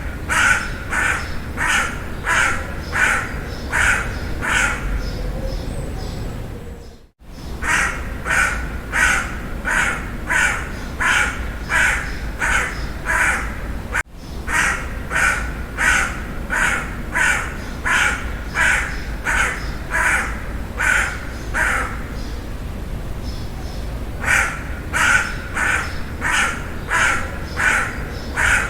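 Crow cawing in long runs of harsh caws, about two a second, with pauses of a second or two between runs. The sound drops out briefly about seven seconds in.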